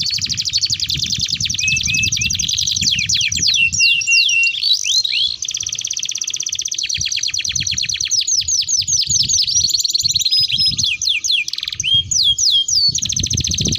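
Domestic canaries singing a long, continuous rolling song: rapid trills and quick falling whistled notes, broken only by a brief pause about five seconds in.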